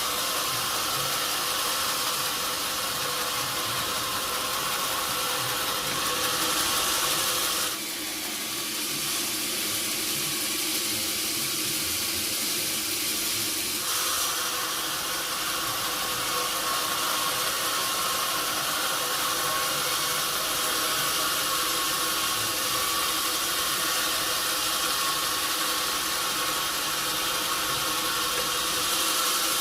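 Sawmill machinery running steadily, a constant hiss with a hum under it. About a quarter of the way in the high hiss drops away for several seconds, then comes back.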